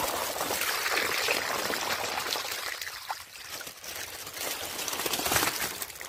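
Water pouring out of a tipped plastic fish bag into a pond, splashing as it runs in. The flow eases about three seconds in and pours strongly again near the end.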